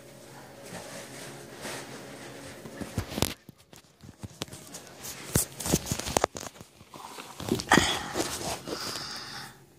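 Handling noise from the recording phone: rustling with several sharp knocks and taps, and a nearly quiet stretch about three seconds in.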